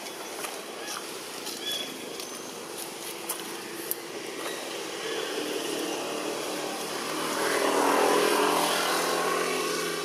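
Outdoor ambience with a motor engine passing: it builds from about halfway, is loudest a couple of seconds before the end, then fades. A few faint clicks and chirps sound over the background.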